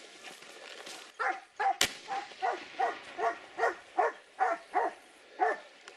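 A hunting dog barking at a downed wild boar in a steady, rapid run of about a dozen barks, two to three a second, starting about a second in. A single sharp click cuts in about two seconds in.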